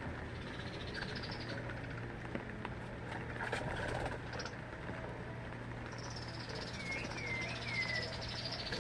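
Small birds calling: a rising high note in the first second or so, then from about six seconds in a fast, high trill and three short curved whistles, over a steady low hum.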